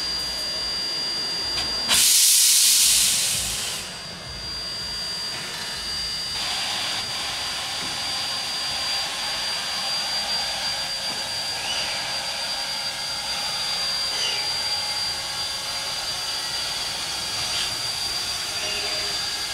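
Everett Railroad No. 11, a 2-6-0 Mogul steam locomotive, letting off steam: a loud blast of hissing steam about two seconds in that lasts about two seconds, then a steady hiss of steam from the cylinders as the engine starts to move off.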